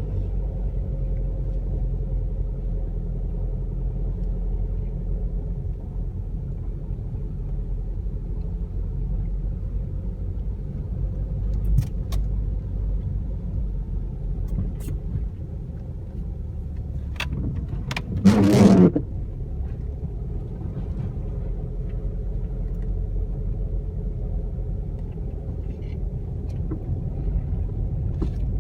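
A car driving, heard from inside: a steady low road and engine rumble. A few faint clicks come through, and about two-thirds of the way in there is one loud burst of noise lasting under a second.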